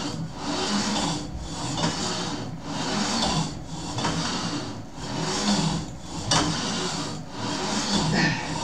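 Home-built cable pulley machine rasping and rubbing as the cable runs over its pulleys and the weight plates slide along their guide bar during cable crunches. It goes in a steady rhythm of strokes about every 1.2 s, with a brief lull at each turnaround.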